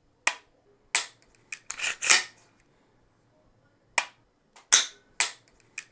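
Mil-spec trigger of a PSA KS-47 being dry-fired by hand: a series of sharp metallic clicks, some in quick pairs, as the hammer drops and the trigger resets.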